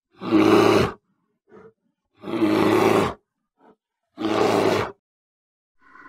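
Grizzly bear roaring three times, each roar short and coarse and under a second long, about two seconds apart, with faint short sounds in the gaps between them.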